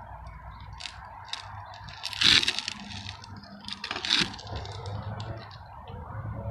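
Putty knife scraping and spreading wet roof-patching cement over the gritty mineral surface of a flat roof, in a series of short scraping strokes. The loudest stroke comes about two seconds in, and another strong one just after four seconds.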